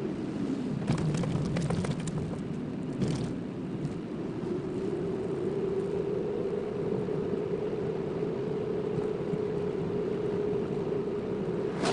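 Car driving, heard from inside: steady engine and tyre noise with a droning tone. About one to three seconds in there is a cluster of short rattles and clatters, as from a rough road surface.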